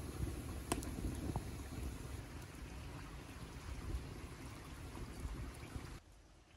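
Wood fire burning in a steel stove: a steady rushing with sharp crackles and pops. About six seconds in it cuts off abruptly to near silence.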